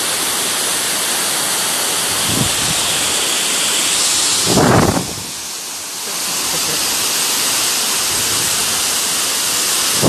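Waterfall and its stream pouring over rocks: a steady, loud rush of water, with one brief louder swell near the middle.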